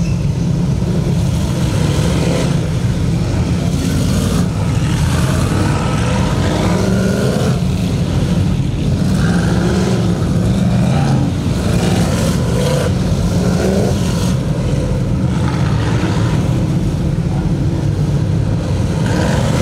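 A field of DIRTcar Sportsman dirt modifieds, their crate V8 engines running together as the pack passes on a warm-up lap. Cars go by one after another, each engine's pitch rising and falling as it passes, over a steady low drone from the rest of the field.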